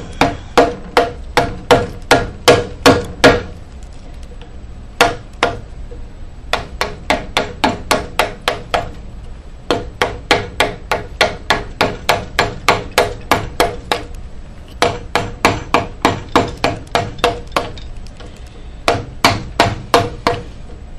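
Carving mallet striking a large 45-degree V-tool into walnut in quick runs of sharp knocks, about three to four a second, with several short pauses between runs. Each blow has a brief ring.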